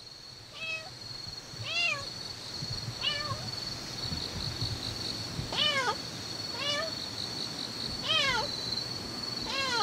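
Tabby cat meowing repeatedly as it walks: about seven short meows, each rising then falling in pitch, roughly one every second or so.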